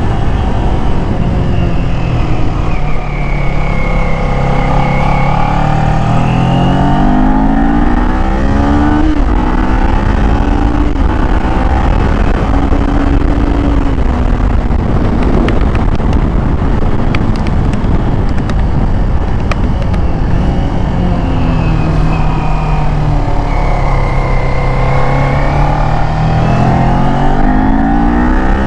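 Kawasaki Z400's 399 cc parallel-twin engine running through its stock muffler while riding. Its note rises and falls several times as the throttle is worked, with steady wind rumble on the microphone.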